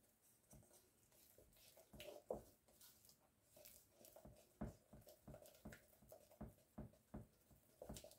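Wooden spoon stirring thin icing in a plastic mixing bowl: faint, uneven scraping and tapping strokes against the bowl, more frequent from about halfway.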